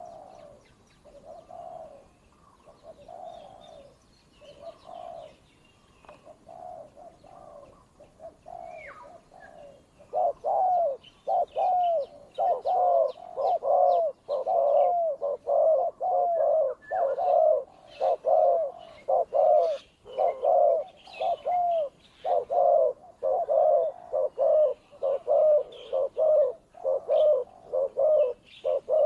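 Spotted doves cooing in short repeated phrases. About ten seconds in, a nearby dove starts cooing much louder, fast and insistently, roughly two phrases a second: the territorial cooing of a decoy dove facing off against a wild one.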